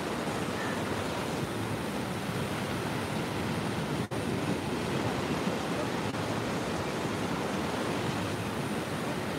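Ocean surf breaking and washing up the sand, a steady rush of noise that drops out for an instant about four seconds in.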